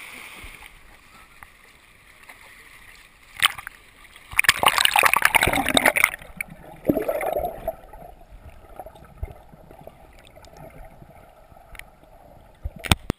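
Water splashing over a waterproof camera at the waterline: a knock, then about two seconds of loud rushing splash, then muffled gurgling as the camera sits underwater, with a few sharp knocks near the end.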